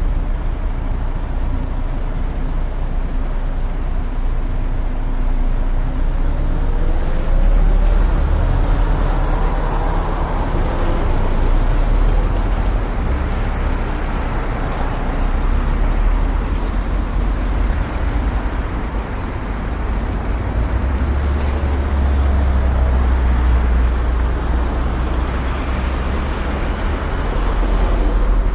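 Car driving through city traffic: a steady low rumble of engine and tyres on the road, swelling and easing slightly as it goes.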